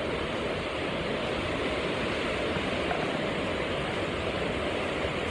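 Krimml waterfall's white-water rapids rushing: a steady, really loud roar of falling and churning water with no change in level.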